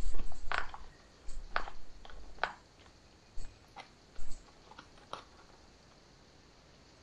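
Metal spoon scraping and clicking inside a freeze-dried meal pouch as food is scooped out, with the pouch crinkling. It comes as a series of short scrapes, densest in the first three seconds and sparser after.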